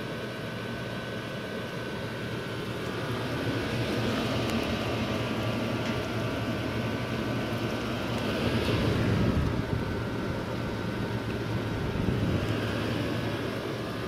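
Gibson Air Sweep window air conditioner running: a steady rush of air and motor hum with a faint constant whine on top, swelling louder a few times.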